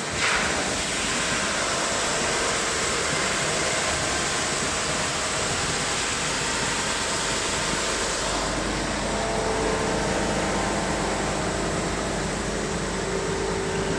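Wide-belt sanding machine running with its two abrasive belts sanding a solid laminated wood board as it feeds through. A bright hiss starts as the board goes in and eases after about eight seconds, leaving the machine's steady running noise with a low hum and a faint whine.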